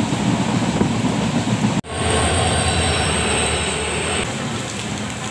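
Passenger train running, heard from an open coach doorway: rumble and rushing wind. After a cut about two seconds in comes a steadier train sound with a thin high whine, which stops a little before the end while the rest slowly fades.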